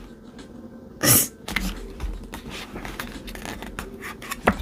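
Glossy pages of a photobook being turned and handled by hand. There is a loud swish about a second in, small paper rustles and clicks, and a sharp tap near the end.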